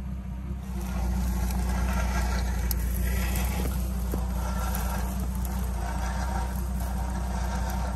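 A truck's engine running steadily at low speed as it crawls over rocks, getting louder about a second in as it picks up throttle.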